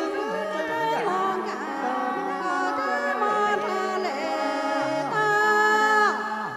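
Several Hmong qeej (khèn Mông), long bamboo free-reed mouth organs, played together: sustained chords of several notes that step from pitch to pitch with quick downward slides, breaking off near the end.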